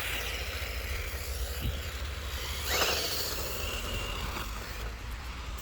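Electric motor of a toy RC car whirring as it drives, swelling with a brief rising and falling whine about three seconds in, over a steady low rumble of wind on the microphone.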